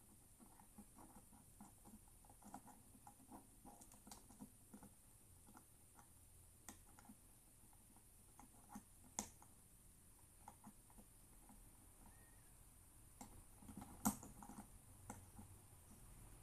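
Faint small clicks and scrapes of a lock-opening tool being worked in a Kaba-type dimple lock cylinder, with two sharper clicks about nine and fourteen seconds in.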